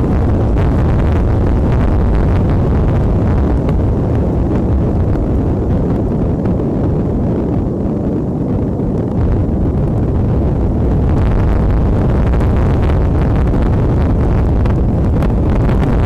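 Strong wind buffeting the outdoor nest camera's microphone: a loud, steady low rumble that eases a little about halfway through, then builds back up.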